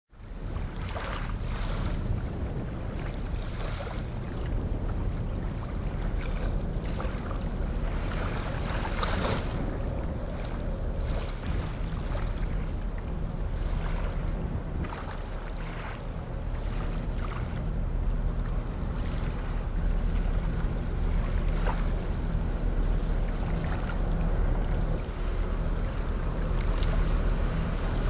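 The cruise ferry La Suprema's engines droning low and steady as the ship moves past, with gusts of wind buffeting the microphone.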